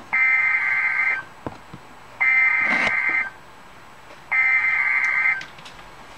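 NOAA Weather Radio Emergency Alert System (SAME) header: three identical bursts of warbling digital data tones, each about a second long with about a second's gap between, over receiver hiss with a few short static crackles. It is the coded header that opens a tornado warning broadcast.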